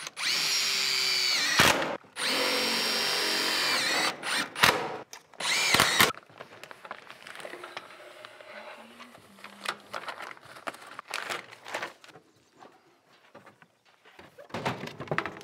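A power drill-driver driving screws to fasten metal J-channel trim, in four runs: two of about two seconds each, then two short ones, the motor's pitch falling as each run ends. After that, quieter scattered clicks and taps of metal being handled.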